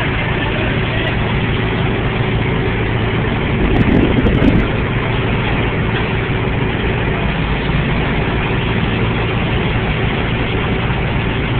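Heavy diesel wrecker's engine idling steadily, with a brief louder patch and a few clicks about four seconds in.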